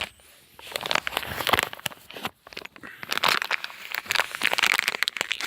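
Plastic packaging crinkling and rustling in irregular crackly bursts as it is handled.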